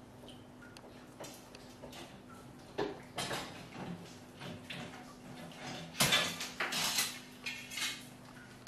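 Irregular scrapes and knocks of a workman's hand tools at the stripped kitchen cabinet base, loudest about six to seven seconds in, over a faint steady hum.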